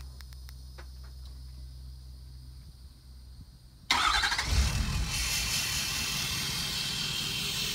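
Ford 6.7 L Power Stroke V8 diesel in a 2014 F-250, remote-started: after a few faint clicks it fires abruptly about four seconds in, loudest at the catch, then settles into a steady idle through an exhaust with the DPF deleted.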